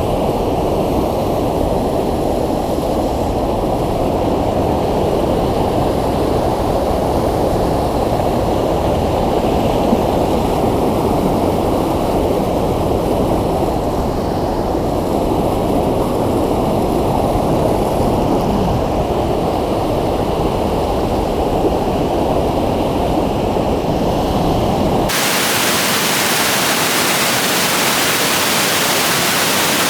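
Waterfall rushing in a loud, steady roar. About 25 seconds in it changes suddenly to a brighter hiss of falling water.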